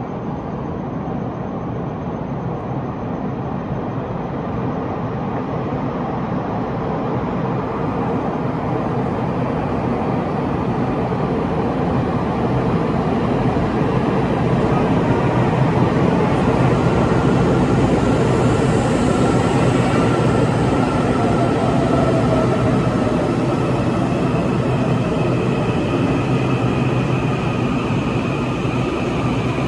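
Taiwan Railways EMU800 electric train arriving at an underground platform and braking to a stop. Its running noise builds over the first half as it approaches and stays loud as the cars slide past, with whining tones that drop in pitch as it slows.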